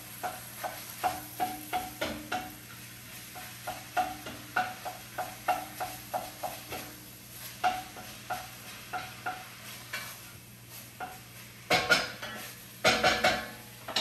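A cooking utensil tapping and scraping against a pan in quick repeated strokes, about three a second, as ground beef is broken up while it browns in hot oil with a sizzle underneath. Two louder scraping clatters come near the end.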